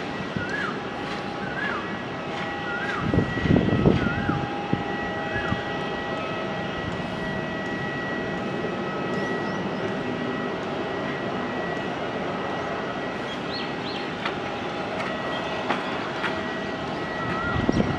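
Airbus A330 twin turbofan engines running at low thrust as the airliner rolls along the runway: a steady rushing noise with a high, level whine. A bird calls over and over in the first few seconds and again near the end, and a brief low rumble comes about three seconds in.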